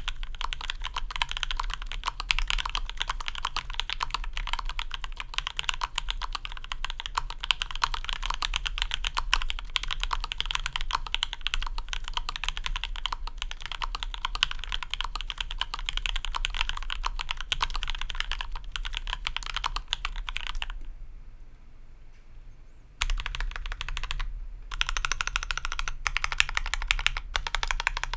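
Fast, continuous typing on a custom mechanical keyboard with lubed, filmed H1 switches in a 5 mm acrylic plate and GMK keycaps: a dense patter of keystroke clacks. The typing stops for about two seconds roughly three-quarters of the way through, then picks up again.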